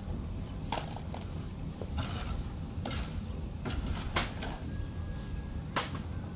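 About half a dozen irregular knocks and clacks, over a steady low wind rumble.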